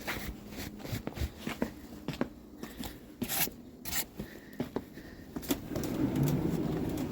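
Scattered clicks, rubs and scrapes of movement and handling: clothing, shoes and the phone being moved. A denser low rumble sets in about six seconds in.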